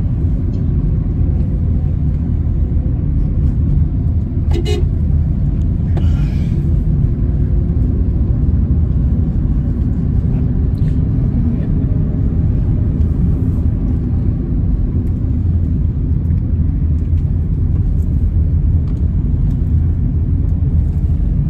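Steady low road and engine rumble inside a moving car's cabin, with a brief sharp sound about four and a half seconds in.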